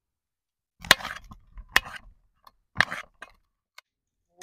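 Sharp knocks and cracks, three loud strikes about a second apart with lighter clicks between them.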